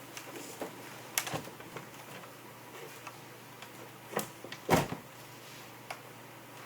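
A handful of separate knocks and clicks, the loudest about three-quarters of the way through, as a flat-screen computer monitor is lifted and hooked onto picture hangers on the wall.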